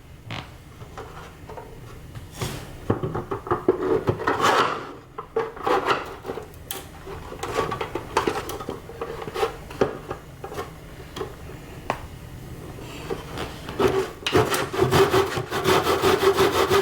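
Hand saw cutting shoe moulding in a miter box for a 45-degree cut. It starts with slow, uneven strokes and settles into quick, even back-and-forth strokes about three seconds before the end.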